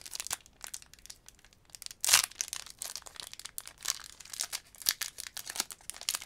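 Foil wrapper of a Pokémon booster pack crinkling and tearing as it is opened by hand, with one sharp, louder crackle about two seconds in.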